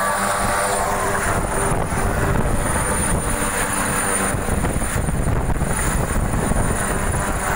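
Helicopter lifting off and climbing away: loud, steady rotor and turbine noise with a constant high whine over it.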